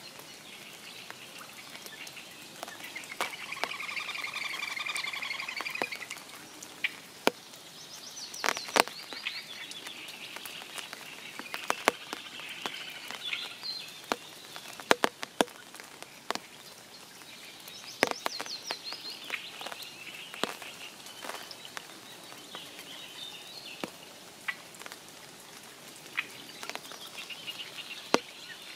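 Spring rain falling around a forest pond: steady light hiss with many single loud drops striking close by at irregular moments. Birds sing throughout, and a pulsing trill stands out for a few seconds about three seconds in.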